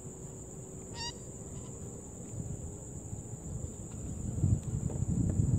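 Insects chirring in a steady high-pitched drone, with a single short bird call about a second in. Wind rumbles on the microphone, growing louder near the end.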